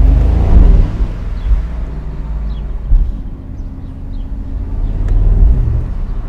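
Mercedes-AMG SL 63's 4.0-litre twin-turbo V8 engine and exhaust under way, with a deep rumble likened to a Harley-Davidson riding behind the car. The revs swell at the start, a short sharp crack comes about three seconds in, and the engine builds again near the end.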